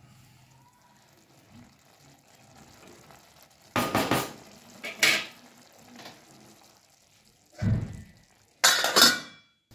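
Wooden spatula stirring and scraping seviyan and vegetables in a metal kadhai. It makes several short, loud scrapes, the first about four seconds in and the last cutting off sharply near the end.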